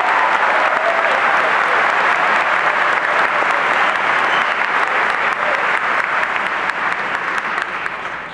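Large audience applauding, a dense steady clapping that tapers off near the end.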